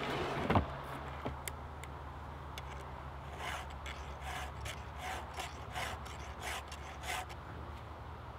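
A heavy thud as a log is set down on a wooden pallet. From about three seconds in, a round file rasps across the cutters of a chainsaw chain in a filing guide, about two strokes a second for some eight strokes, as the chain is sharpened.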